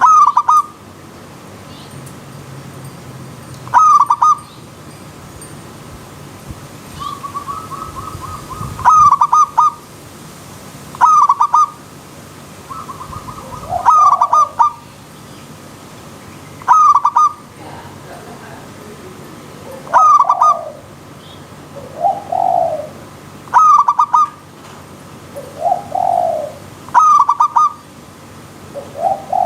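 Zebra doves (perkutut) cooing: short stuttering coo phrases repeated about every two to three seconds, with lower rising-and-falling coos joining from about halfway. Under the calls runs the steady hiss of a flowing stream.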